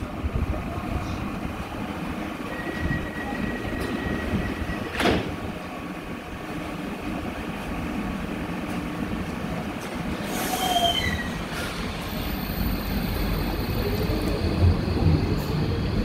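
Docklands Light Railway B07 train standing at the platform, then pulling away: a sharp knock about five seconds in as the doors shut, and a rising electric motor whine from near the end as it accelerates.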